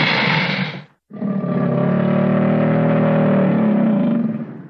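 American alligator vocalizing: a loud, noisy call stops about a second in, then after a brief pause comes a deep growl lasting about three and a half seconds.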